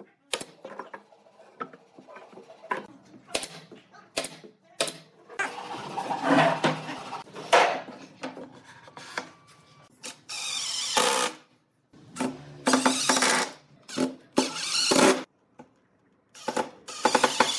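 Workshop assembly sounds: a pneumatic nail gun firing a series of sharp shots into pine in the first few seconds, wooden parts knocked and shifted into place, then a cordless drill driving screws in short runs near the end.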